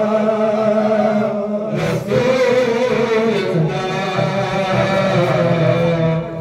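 Men's voices chanting a devotional Urdu poem into microphones, unaccompanied, in long held notes with a short break about two seconds in.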